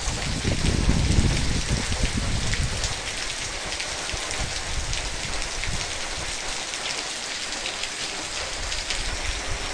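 Heavy rain falling steadily on trees and on water flooding a paved yard, with a low rumble during the first two seconds or so.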